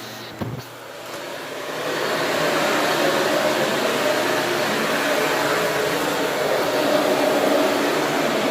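Shark vacuum cleaner running: after a brief dip and a knock about half a second in, the motor noise rises over the next two seconds, then holds steady with a hum.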